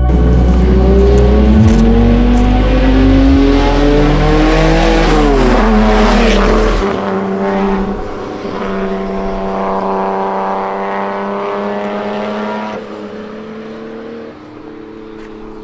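Cars accelerating away, led by the note of the Nissan Stagea's RB26DETT twin-turbo straight-six: the engine note rises for about five seconds, drops back, then holds steady while growing fainter.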